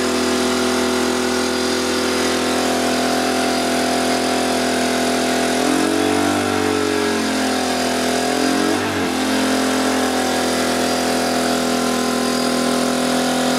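Honda EU3000i inverter generator running steadily. Its engine pitch wavers up and down for about three seconds in the middle as its speed changes.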